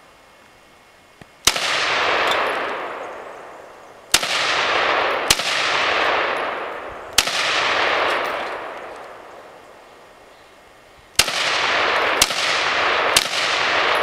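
SIG 556 SWAT Patrol 5.56 mm rifle fired seven single shots at an uneven pace, with a gap of about four seconds in the middle. Each crack is followed by a long echo that rolls off over about two seconds.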